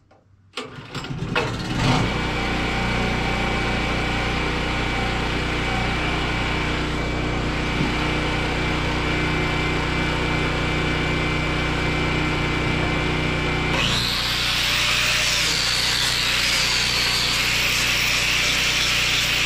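A portable generator's engine starts about a second in and settles into a steady run. About 14 seconds in, a power sander driven from it starts up and sands the wood of a chainsaw-carved heart, a loud grinding hiss whose pitch wavers as it is worked.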